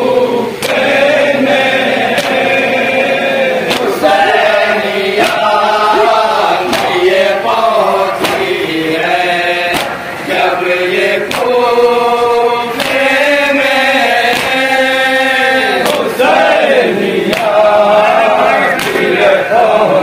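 Men chanting a noha, a Shia mourning lament, in chorus, with the crowd's chest-beating (matam) slaps keeping a steady beat about once a second.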